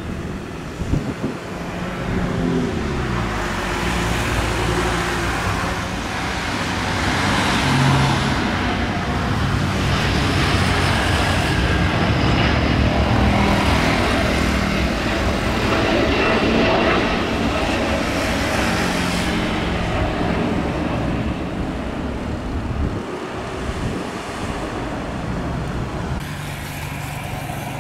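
Airbus A330-900neo's twin Rolls-Royce Trent 7000 turbofans at takeoff thrust: a loud jet roar that builds as the airliner rolls down the runway, lifts off and climbs past, then eases off after about twenty seconds.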